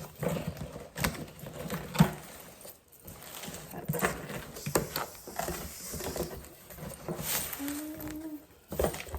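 A mop's packaging being handled and opened: irregular rustling and crinkling with sharp knocks and clicks, the loudest knock about two seconds in.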